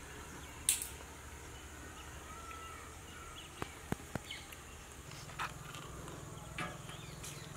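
Faint outdoor ambience of birds chirping and insects, with a sharp click about a second in and a few smaller clicks later.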